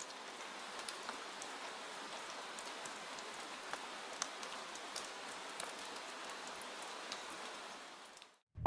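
Soft rain falling steadily: an even patter dotted with sharp single drops, fading out shortly before the end.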